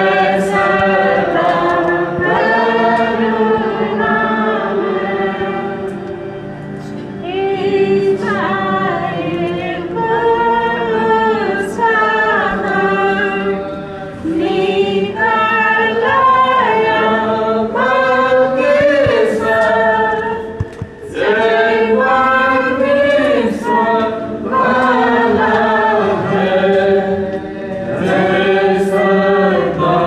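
A group of voices singing a hymn together, unaccompanied, in long held notes.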